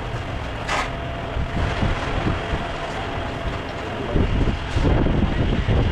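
Steady background roar with low rumbling, and a short clink about a second in; the low rumbling grows heavier about four seconds in.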